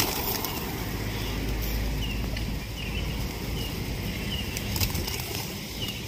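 A flock of rock pigeons flapping their wings as they fly in and land around scattered grain, loudest at the very start, with a few fainter flutters later. Short high chirps repeat every second or less over a low steady rumble.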